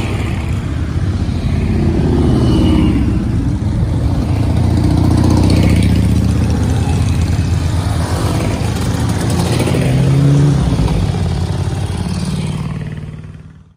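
A line of motorcycles riding past one after another at low speed, engines running and swelling as each bike passes close by, before the sound fades out near the end.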